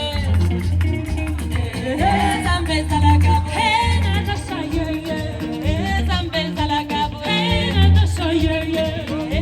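A song playing: a singing voice over a band with a bass line of repeated low notes.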